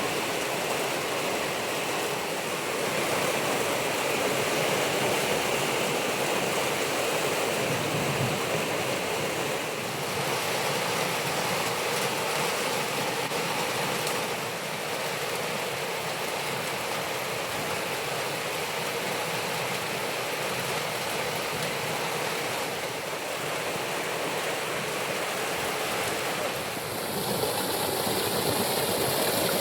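Steady, even rush of water, a little louder near the end.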